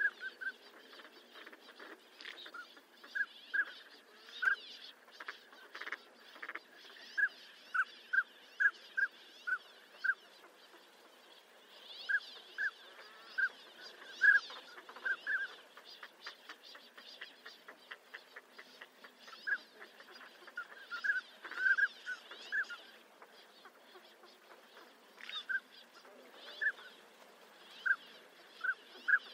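Northern pintail calling: short, high notes given in loose runs of several, with pauses between the runs.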